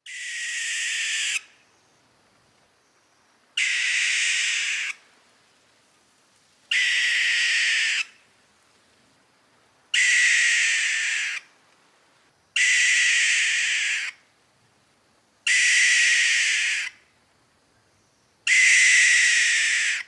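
Barn owl alarm call: seven harsh, hissing screeches, each about a second and a half long, repeated about every three seconds.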